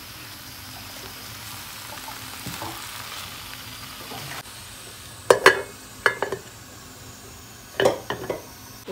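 Chopped Swiss chard and onion sizzling steadily in a frying pan while a wooden spatula stirs them, with a few sharp clatters of spatula and lid against the pan, the loudest about five seconds in and another near the end as the lid goes back on.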